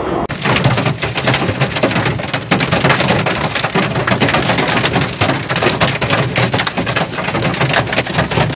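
Hail pelting down hard: a loud, dense clatter of countless hailstones striking. It starts abruptly just after the start and stops suddenly near the end.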